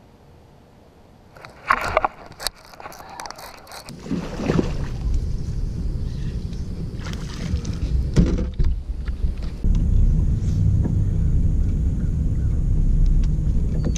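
A few sharp clicks and knocks, then from about four seconds in a steady low rumble of a bass boat on open water.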